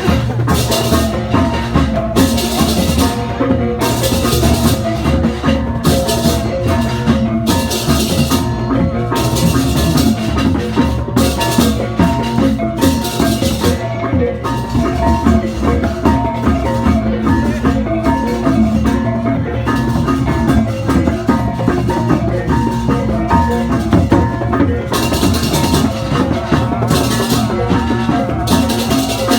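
Balinese gamelan music with ringing gongs and metal keyed instruments under repeated crashes of clashing cymbals, about every second or so.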